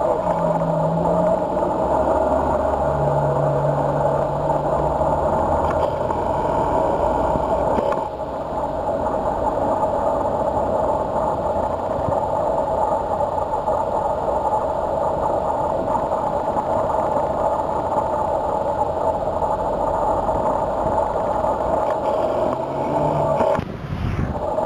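Slow-moving road traffic: the engines of a heavy lorry and its escort vehicles running, over a steady hum.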